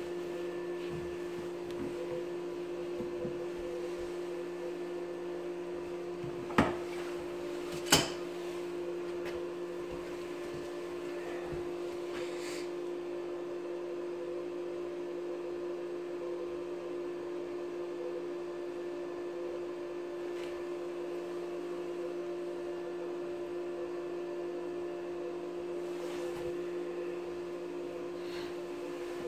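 Steady machine hum, with two sharp clicks about six and a half and eight seconds in.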